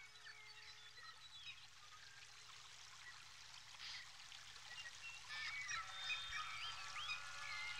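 A chorus of small birds calling, many short chirps and whistles over a faint steady rushing hiss, growing denser and louder about five seconds in. Faint held tones run beneath.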